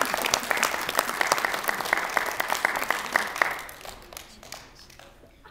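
A crowd applauding, a dense patter of many hands clapping that thins and fades away about four seconds in.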